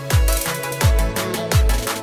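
Background electronic music with a deep kick drum that drops in pitch, striking about every 0.7 seconds under sustained chords.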